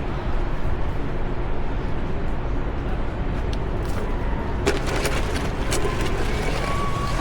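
City street traffic, a steady low rumble of passing cars and buses, with a few sharp clicks or knocks in the second half.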